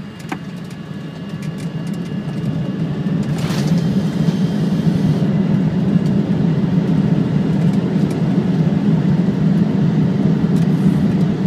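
Flight-deck noise of a Boeing 747-400 on its landing roll just after touchdown. A click comes just after the start, then a low rumble builds over the first four seconds and holds loud and steady, with a brief hiss about three and a half seconds in.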